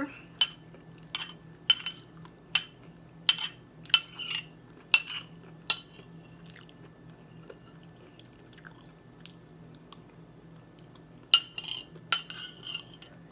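Metal spoon clinking and scraping against a dinner plate while eating: a string of sharp clinks over the first six seconds, a lull, then a few more near the end, with quiet chewing between.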